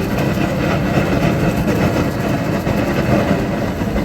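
Steady low roar of an outdoor propane burner firing under a large cooking pot.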